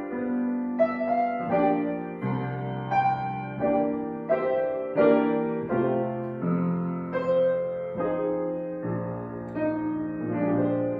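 Solo piano playing slowly, single notes and chords struck less than a second apart and left to ring.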